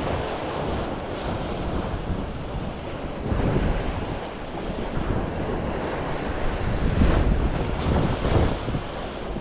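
Wind buffeting the microphone in gusts over waves washing on the shore.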